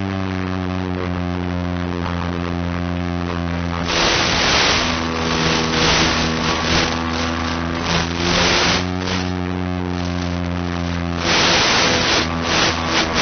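Steady buzzing hum on an analog FPV video receiver's audio channel, broken by bursts of hissing radio static about four seconds in, around eight seconds and near the end, the sign of the video link breaking up.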